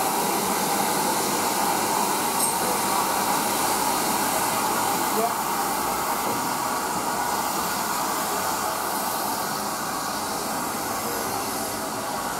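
Steady hiss of steam escaping from GWR 5205-class 2-8-0 tank locomotive no. 5239 Goliath as it stands in steam, easing slightly toward the end.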